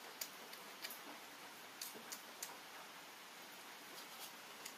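Faint eating sounds of a person eating rice and boiled egg by hand from a banana leaf: a few sharp, scattered clicks over a low hiss.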